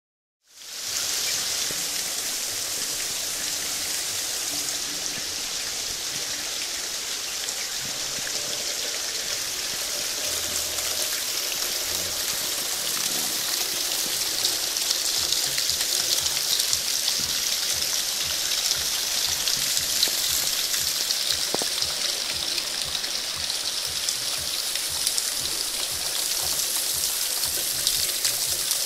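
Heavy rain falling steadily: a dense hiss of drops striking leaves, grass and a waterlogged path, with many single drops ticking sharply close by. It grows a little louder in the second half.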